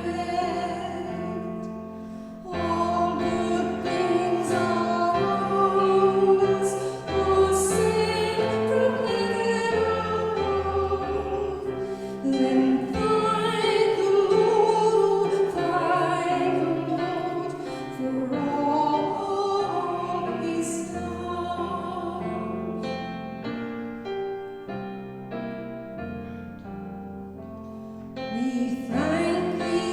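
Worship music: a hymn or worship song sung with instrumental accompaniment, quieter and sparser for a few seconds near the end before the singing swells again.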